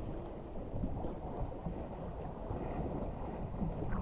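Water rushing and splashing along the hull of a Sunfish sailboat moving fast through choppy water, with wind buffeting the microphone. A louder splash comes right at the end.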